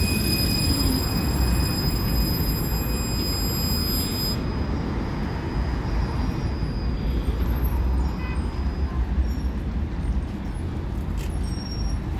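Vityaz-M low-floor tram pulling in to a stop: a high, steady electric whine from its traction drive cuts off suddenly about four seconds in as the tram comes to rest. A steady low rumble of the standing tram and street traffic continues.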